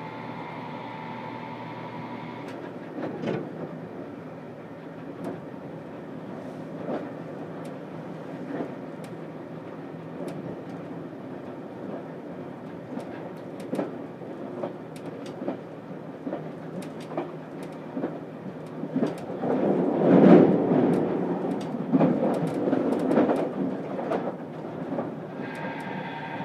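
Running sound inside the cabin of a JR Kyushu 787-series limited express car: a steady rumble with a whine that stops about two seconds in, and many sharp clicks as the wheels pass over rail joints. The rumble grows louder around twenty seconds in.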